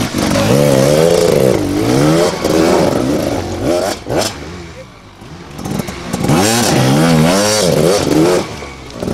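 Two-stroke GasGas enduro motorcycle engine revving up and down in quick throttle blips. It drops quieter for a moment about halfway through, then revs hard again.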